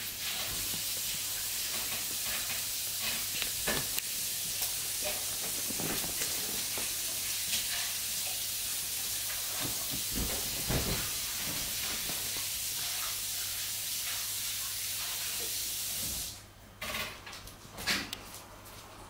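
A steady hiss that cuts off abruptly about sixteen seconds in, with a few soft knocks and thumps from a large dog moving about on a sofa.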